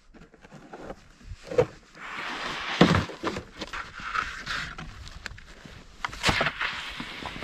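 Irregular knocks and rustling, crunching noise, the loudest knock about three seconds in.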